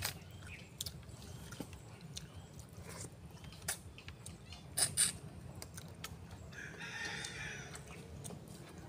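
A rooster crowing once, about a second long, late in the stretch. A few short, sharp clicks come earlier, the loudest two about halfway through.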